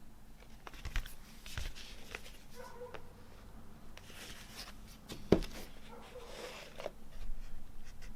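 Hands handling a vinyl record and its packaging: scattered taps and rustles, with one sharp knock about five seconds in.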